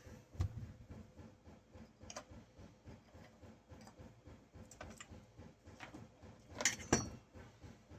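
Scattered light clinks and knocks of metal hand tools on a chainsaw and workbench, as the bar nut is undone and the bar and chain come off. The loudest is a pair of clanks near the end.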